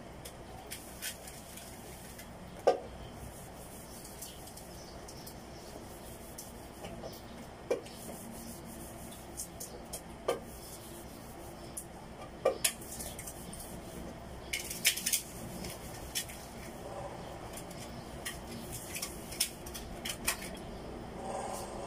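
Fingers picking food off a stainless steel tray: scattered sharp taps and clinks against the metal, a few ringing briefly, with bursts of crisp crackling midway through.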